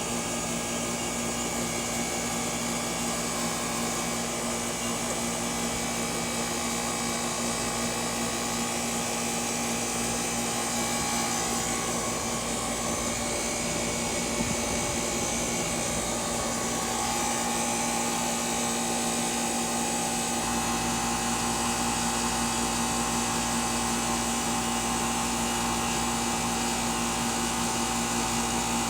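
The outdoor condensing unit of a 3.5-ton R22 central air conditioner running steadily, a compressor hum with fan noise, while it is topped up with refrigerant for a low charge. Its tone shifts slightly about two thirds of the way through.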